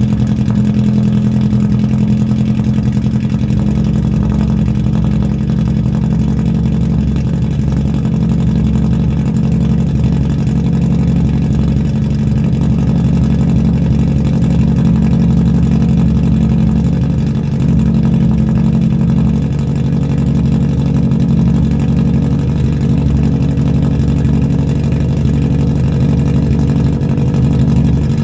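Toyota 4A-GE twin-cam inline-four idling steadily just after a cold start, heard right at the open tailpipe of a straight-piped exhaust with the muffler deleted. A loud, even exhaust drone with no revving.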